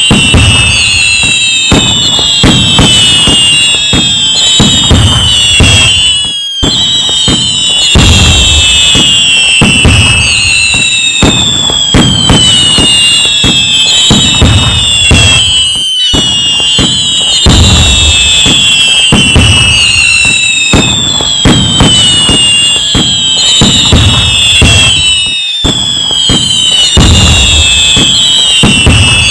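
Fireworks going off in a dense, loud barrage: crackling and booms mixed with many whistling tones that fall in pitch. It breaks off briefly about every nine to ten seconds, then the same pattern starts again.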